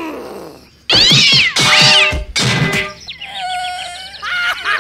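Cartoon sound effects: loud, high, wavering cries about a second in with a thud just after two seconds, then a steady tone with twinkling ticks, a dizzy-stars effect.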